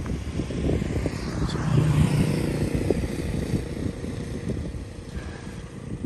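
Wind buffeting the phone's microphone in gusts, a rough, uneven low rumble.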